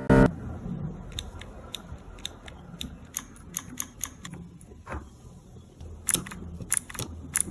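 Yellow linear silent mechanical keyboard switch (Unionwell GT06) pressed by hand again and again: a run of soft, short clicks at uneven spacing, about two or three a second, damped keystrokes with no tactile click. A single louder thump comes right at the start.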